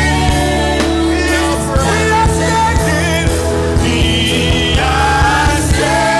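Gospel worship music: a band playing with steady drum hits while voices sing over it.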